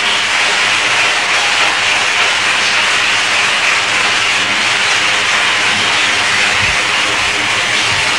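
Audience applauding, a steady round of clapping.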